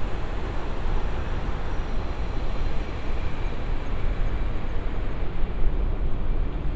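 Steady city traffic noise, an even rumble with no single vehicle or event standing out.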